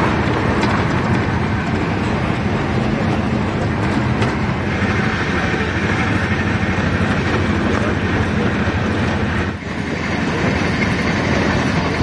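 Steady running noise of a moving passenger train heard from inside the coach: wheels on the rails with a constant rumble. The sound dips briefly about nine and a half seconds in, then carries on.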